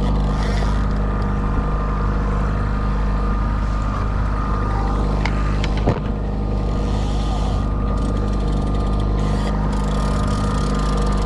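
Fishing boat's motor running steadily at trolling speed: a constant low drone with a steady thin whine above it. A single sharp click about six seconds in.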